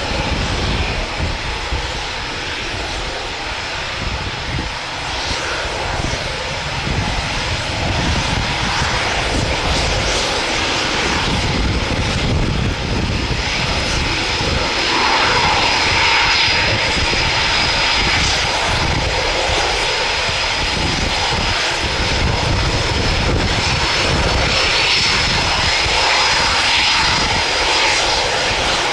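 Eurofighter Typhoon jet engines (twin EJ200 turbofans) running at taxi power as the fighter taxis onto the runway. The sound is a steady jet rush with a high whine held on one pitch, growing a little louder about halfway through.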